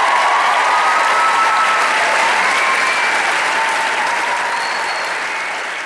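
Audience applauding, slowly fading toward the end.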